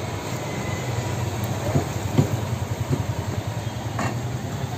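An engine idling, a steady low rumble with a fast even pulse.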